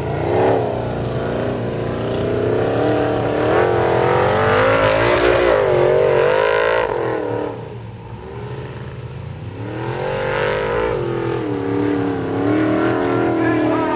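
Formula Offroad buggy's engine revving hard under load as it claws up a steep sand hill, its pitch rising and falling with the throttle. The revs drop briefly about eight seconds in, then climb again.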